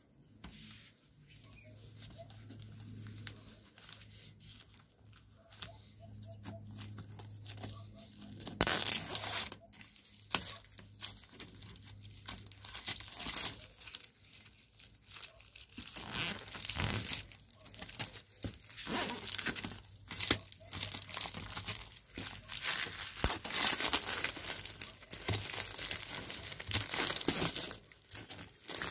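Clear plastic wrapping being pulled off and crumpled while a folding laptop table is unpacked: irregular crinkling and tearing that turns dense and loud from about nine seconds in. A faint low hum runs under the quieter first part.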